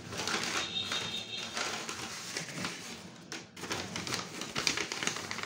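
Paper cards and folded paper being handled, with irregular rustles and light taps.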